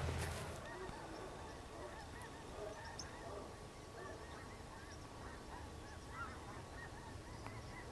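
A distant flock of geese honking: many faint, short calls overlapping one another. A louder noise cuts off about half a second in.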